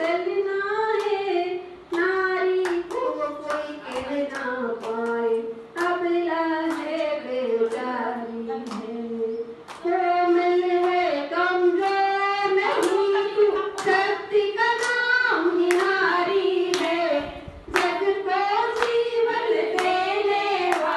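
A woman singing a Hindi song into a microphone without instruments, while hand claps keep a steady beat along with her.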